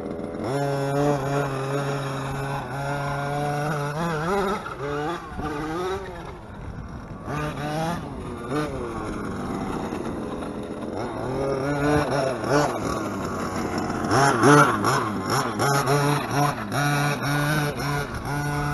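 Zenoah G320 32cc two-stroke engine with a race-ported head, in a 1/5-scale Redcat Rampage RC monster truck, revving up and down again and again as the throttle is worked. The engine note keeps rising and falling in pitch, with its loudest bursts about three-quarters of the way in.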